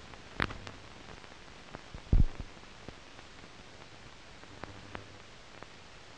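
Steady hiss of an old optical film soundtrack, with a few scattered clicks and one loud, low thump about two seconds in.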